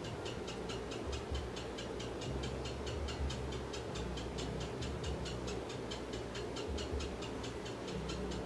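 Steady, even ticking at about five ticks a second, over a low hum.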